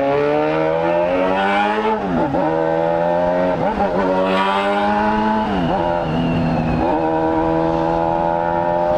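Honda Hornet's inline-four engine accelerating hard. Its pitch climbs, drops sharply at three upshifts, and it then runs at a steady cruising pitch.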